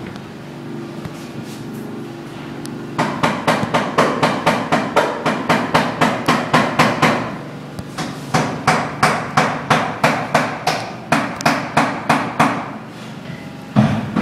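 Hammering: two runs of quick, even hammer blows, about four a second, with a short pause between them. A steady low hum sounds beneath for the first few seconds.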